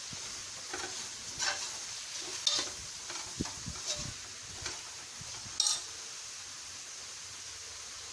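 Spoon scraping and stirring a thick onion-tomato masala with quail pieces in a pressure cooker, over a steady sizzle. The strokes come irregularly, about half a dozen, and stop about six seconds in, leaving only the sizzle.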